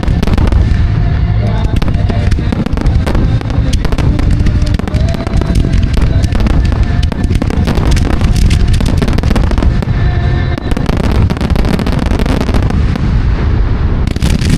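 A dense fireworks barrage: rapid, overlapping bangs and crackles going off without a break.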